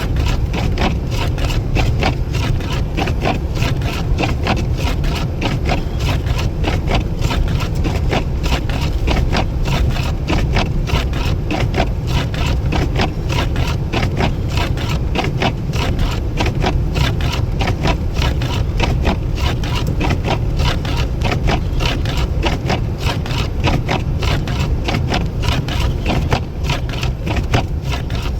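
An engine running steadily with a low rumble and a rapid, even ticking over it.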